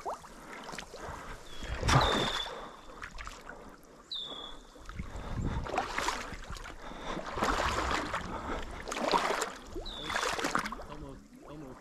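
Water sloshing and swishing around a wader's legs as a person wades through a shallow slough, in repeated surges with the strides. A few short high chirps sound about 2 s and 4 s in and again near the end.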